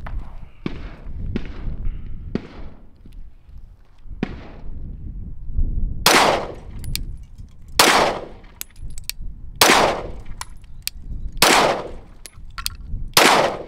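Glock 17 9mm pistol fired unsuppressed with supersonic 115-grain rounds: five sharp, loud shots about two seconds apart, starting about six seconds in. A few much fainter shots come before them.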